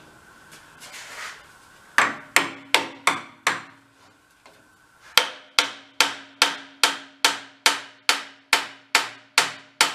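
Hammer blows on steel as a splined drivetrain part is driven into place on the tractor, each strike leaving a short metallic ring. First come five quick blows, then after a short pause a steady run of strikes at about two and a half a second.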